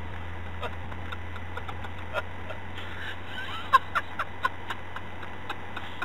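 Steady low hum of a car driving at about 45 mph, heard inside the cabin, with scattered faint irregular clicks and a few short chirps a little past the middle.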